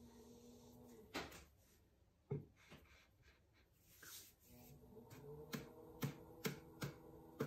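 Faint steady hum of an electric pottery wheel that stops about a second in and starts again near the end, with a few hard knocks on the wheel while it is stopped. Once it runs again come sharp taps, about two a second.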